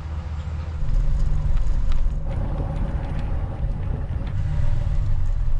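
A vehicle running and moving slowly, with a steady low rumble. A steady hum joins about two seconds in.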